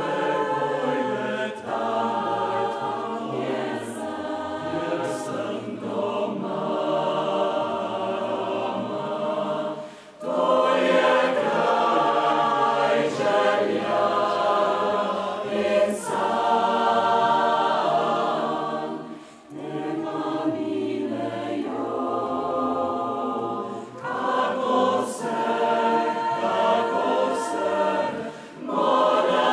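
Mixed choir of women's and men's voices singing a Slovenian song in parts, with short breaks between phrases about ten and twenty seconds in and again near the end.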